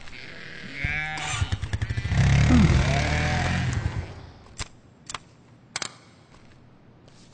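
Small motorcycle-type engine revving up in rapid pulses, then running loud for about two seconds before fading. Then a few sharp clicks of the plastic toy vehicles being handled.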